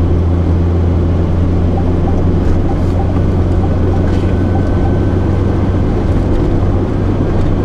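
Vehicle engine and road noise while driving, a steady low hum with an even rush over it.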